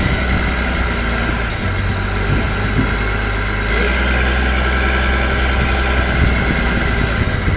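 Army truck's engine running steadily as the truck drives slowly, with a high whine that dips and then rises in pitch.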